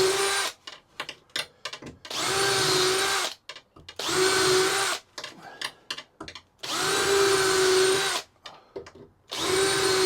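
Power drill boring into a door to fit a nightlatch, run in about five short bursts of a second or so at a steady speed, with clicks in the pauses between.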